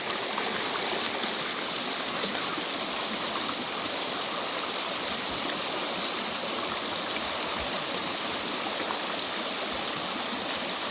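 A small rocky creek running strongly, its water splashing and gurgling in a steady rush. The creek is newly flowing again after having been dry.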